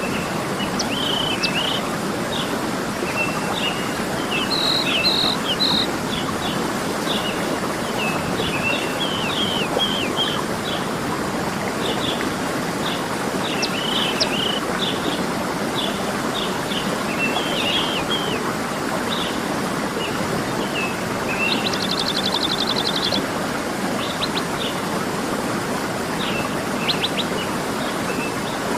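Steady rushing of a waterfall with many birds chirping and whistling over it, and a quick trill about two thirds of the way through.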